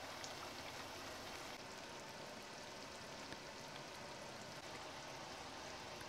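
Faint, steady sizzling and crackling of a grouse and tomato stew cooking in an enamelled cast-iron pot.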